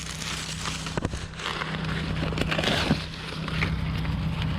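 Combine harvester running while shelling corn: a steady low engine drone with a rushing of crop and machinery over it, and a few faint ticks.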